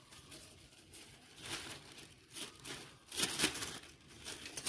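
Thin plastic bag crinkling and rustling in short, irregular handfuls as dry corn husks are pushed into it, the loudest rustle a little after three seconds in.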